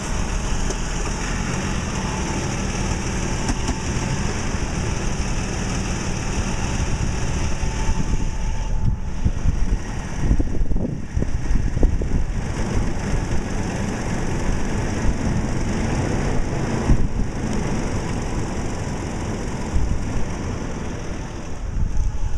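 2008 Toyota Tacoma engine running, with a steady grinding from a failing belt tensioner.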